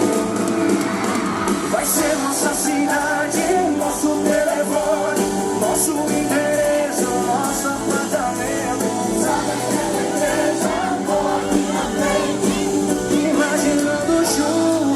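Live sertanejo pop music played by an amplified band, with singing over it.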